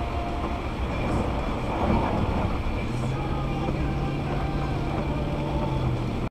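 Steady road and engine noise inside a car driving on a wet road in the rain, with the windshield wipers sweeping. A steady low hum joins about halfway through.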